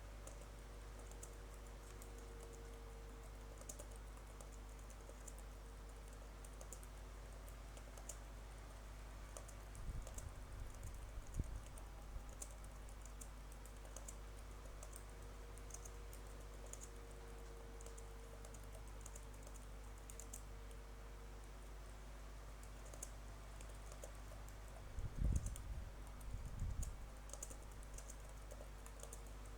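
Computer keyboard being typed on quickly and continuously, the keys struck under a cloth laid over the keyboard. Dull low thumps come in two short clusters, about ten and twenty-five seconds in.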